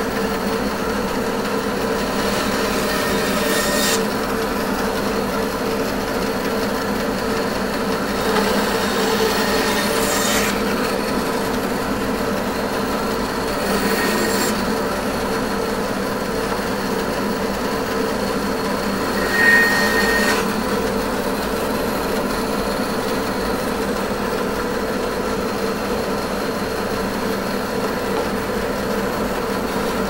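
Bandsaw running steadily, its blade cutting briefly into blocks of red ironbark four times, with a short squeal on the last cut.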